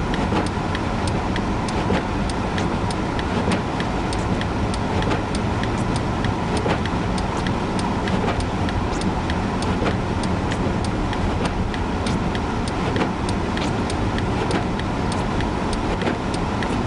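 Steady engine and road noise inside a car driving slowly on a snow-covered highway in a blizzard, with scattered light ticks throughout.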